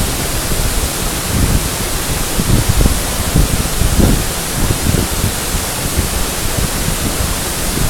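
Waterfall: a loud, steady rush of falling water, with uneven low surges under the hiss.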